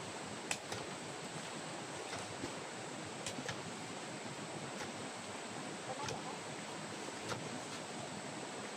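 A handful of short, sharp knocks from hand hoes biting into dirt and stones, irregularly spaced, over a steady rushing hiss.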